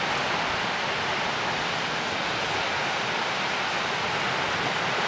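Steady rushing of sea surf breaking on the shore, an even noise with no break or distinct event.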